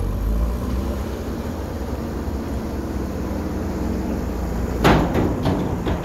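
JCB 3CX backhoe loader's diesel engine running steadily as the machine drives with a loaded front bucket. About five seconds in, a quick series of sharp knocks and clanks, the first the loudest.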